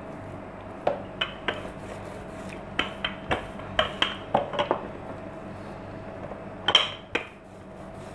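Wooden rolling pin rolling out paratha dough on a work surface, giving a run of short knocks and clacks as it is pushed back and forth and lifted, most of them in the first five seconds and a few more near the end. A faint steady hum runs underneath.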